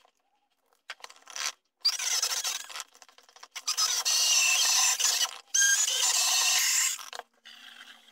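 Electric stick blender puréeing a thick mix of toasted almonds, red pepper and parmesan in a tall beaker, run in three bursts of one to two seconds each with a high whine.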